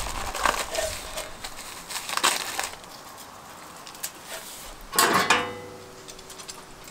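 Gloved hands rubbing and handling a raw, marinade-coated whole chicken in a stainless steel tray, irregular wet rubbing noises. About five seconds in, a sharp knock against the steel tray that rings on briefly.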